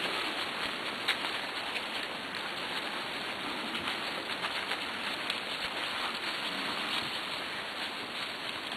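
Steady hiss of a dog-drawn rig rolling over a wet, leaf-covered trail behind a running team of sled dogs, with a sharp click about a second in.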